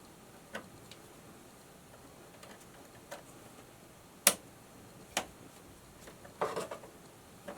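Scattered light clicks and taps of a hand wrench and copper ground wires being worked, with one sharp click about four seconds in and a short cluster of clicks near the end.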